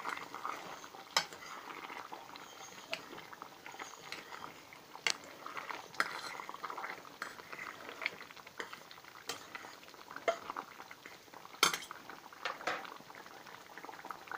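Spoon stirring a stainless-steel pot of simmering tomato sauce with meatballs, clinking and scraping against the pot with several sharp clinks, over a low bubbling.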